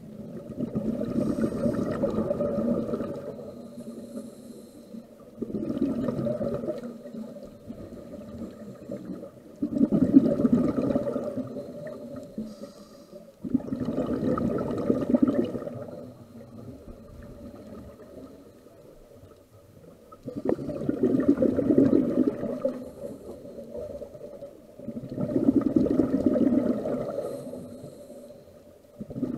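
Scuba diver breathing through a regulator underwater: six bursts of exhaled bubbles about every four seconds, with a longer pause about halfway through and faint hiss between.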